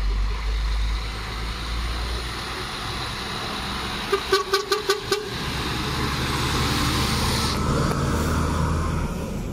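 A truck horn toots about six times in quick succession about four seconds in, over the steady running of lorry engines.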